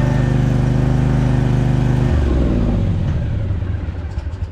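Spartan RZ48 zero-turn mower engine running steadily, then switched off about two seconds in, its pitch falling as it winds down. It is the test run after a new pump belt was fitted, which the owner judges good.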